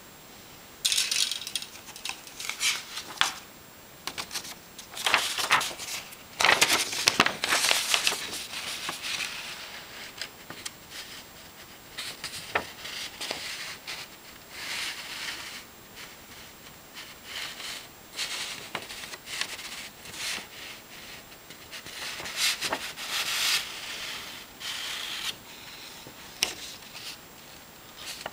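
Hands handling a plastic model kit's parts sprues and paper instruction sheets: an uneven run of rustling and crinkling, loudest a few seconds in, with a few sharp clicks.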